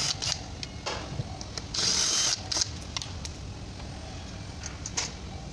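Hand tools working the 10 mm bolts of an automatic transmission oil pan: sharp metal clicks, with one short, harsh burst of tool noise about two seconds in.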